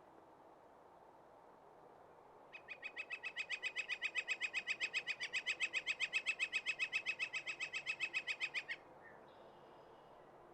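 Northern flicker giving its long call: a rapid, even run of identical loud notes, about seven a second, starting a couple of seconds in and lasting about six seconds.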